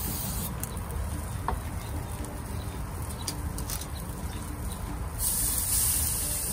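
Steady low rumble of a lit gas grill with a few faint crackles from the grate; about five seconds in, a loud sizzling hiss starts as a marinated, sous-vide-cooked flank steak is laid on the hot grate to sear.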